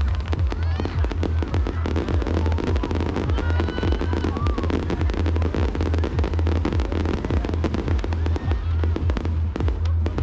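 Fireworks show in full barrage: dense, rapid bursts and crackles, many a second, over music with a heavy steady bass.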